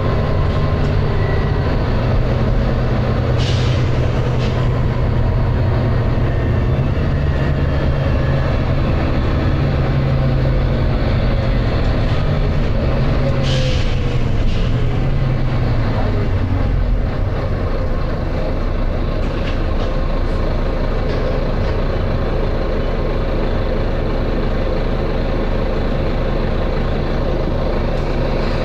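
Volvo B9TL bus's six-cylinder diesel engine running hard under load, heard from on board, with two short air hisses from the bus's air system about three and a half and thirteen and a half seconds in. The engine note drops in pitch partway through.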